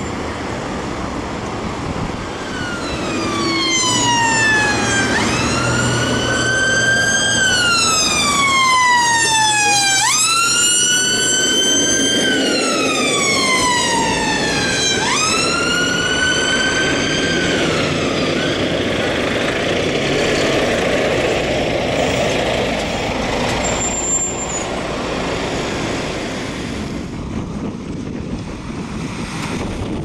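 Ambulance siren on a slow wail: each cycle is a quick rise followed by a long falling sweep, about five seconds apiece. It comes in a couple of seconds in, is loudest midway, and fades out after about fifteen seconds into steady town traffic noise.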